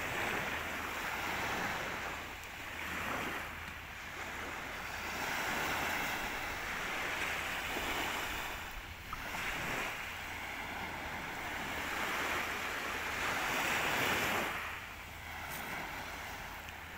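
Small waves breaking and washing up a pebble shore, the surf swelling and fading every few seconds.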